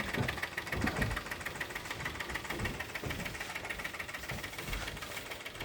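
Small coal-fired steam engine running under steam, giving a fast, even mechanical clatter and chuff.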